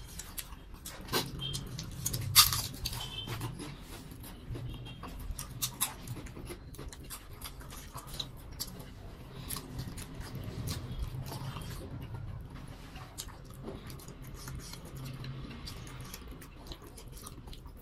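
Close-up eating sounds: chewing and wet mouth clicks, with fingers working food on steel plates. There are many small clicks throughout and one louder click about two and a half seconds in.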